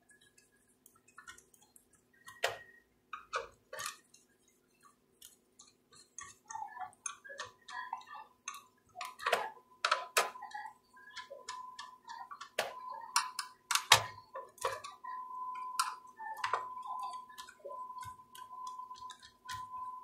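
Small screwdriver clicking and scraping against metal screws and a laptop heatsink as it is fastened onto the motherboard: irregular light clicks, few at first and more frequent from about six seconds in. A faint steady hum runs underneath, and a thin steady tone joins it from about eight seconds.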